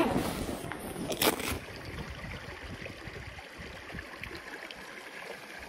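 River water running steadily at the bank, with a short noisy burst about a second in.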